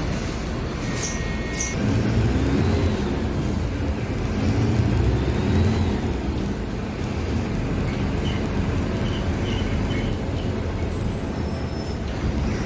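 Mercedes-Benz OF-1721 Bluetec 5 bus's four-cylinder diesel engine running under way, its pitch rising twice as it pulls through the revs. Two short air hisses come about a second in.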